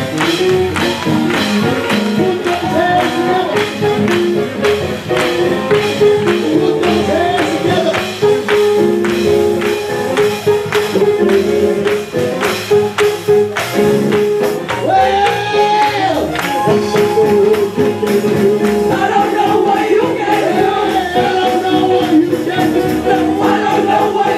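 Gospel choir singing an up-tempo song live, with hand clapping on a steady beat.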